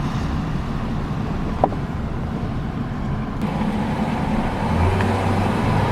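Steady road and engine noise heard from inside a moving car's cabin, with a single short click about a second and a half in.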